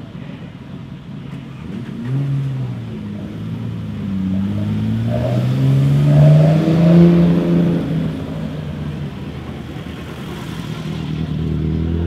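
Rally car engine accelerating, its pitch climbing and loudest about six to seven seconds in, then fading away; another engine rises near the end.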